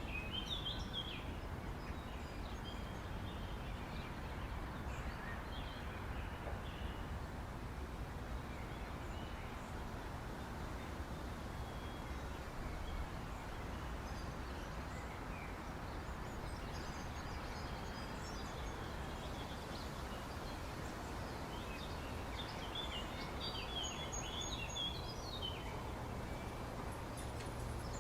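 Outdoor ambience: a steady background noise with a low rumble, and birds chirping briefly at the start and again in a cluster near the end.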